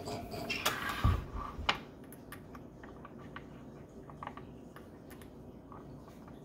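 Handling of a glass dropper bottle at a lab bench: a brief rustle and bump about a second in, then scattered small clicks.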